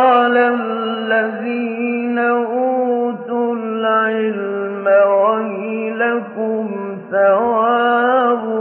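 Solo male Quran reciter in melodic tajweed style, holding long ornamented notes on a steady pitch. The voice breaks briefly about seven seconds in and starts a fresh phrase.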